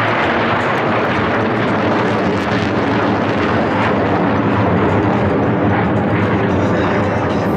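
Steady, loud jet engine noise from Blue Angels F/A-18 Hornet jets flying a formation maneuver.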